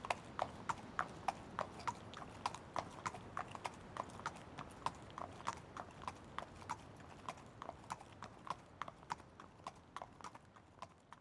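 Horse hooves clip-clopping on hard ground at a steady walk, about three hoofbeats a second, fading away over the last few seconds.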